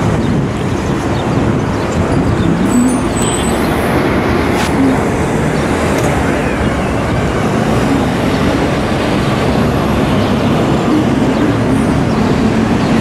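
Steady traffic noise from a busy city road, with cars and buses passing.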